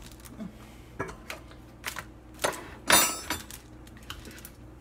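Stainless steel stand-mixer parts being handled: a few light metal clicks and knocks, then a loud metallic clatter with a short ringing about three seconds in.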